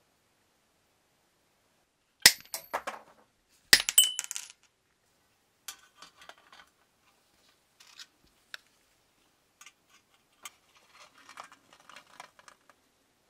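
Small brass and metal parts clattering: two sharp metallic clatters with a brief ring, about two and four seconds in, then light clicks and scrapes of metal being handled at the box's hinge.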